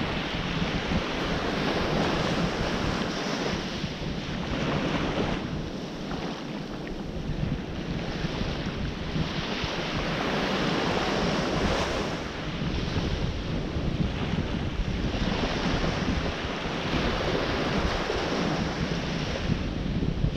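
Ocean surf breaking and washing ashore, the noise swelling and ebbing every few seconds, with wind buffeting the microphone.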